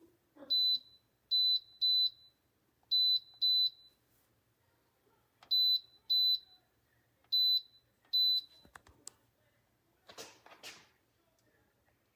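Touchscreen toaster's control panel beeping: nine short, identical high-pitched beeps over about eight seconds, mostly in pairs. Near the end comes a brief rustle.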